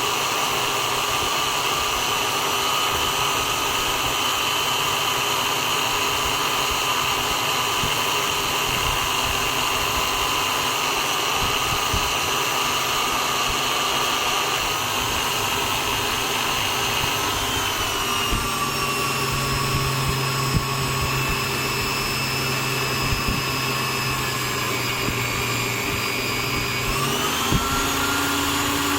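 Electric drill motor running steadily with a whine. Its pitch drops about two-thirds of the way through and climbs back near the end, with a few light clicks.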